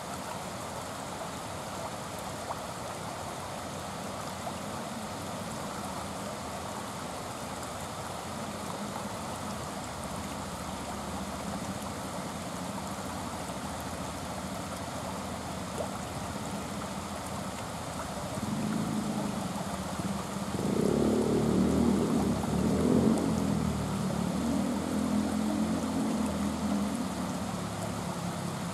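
River water rushing and splashing over a low weir, a steady hiss. About two-thirds of the way in, a louder, uneven low rumble joins it for several seconds.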